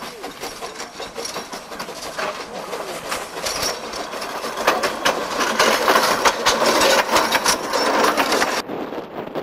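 Narrow-gauge train running along the line, its wheels clattering over the rail joints in a quick run of clicks and knocks. It grows louder from about halfway in, then the sound changes abruptly and drops away shortly before the end.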